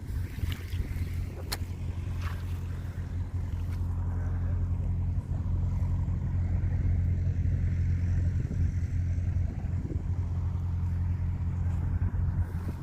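An engine running steadily at a low, even pitch, growing a little louder about five seconds in, with a few light clicks in the first couple of seconds.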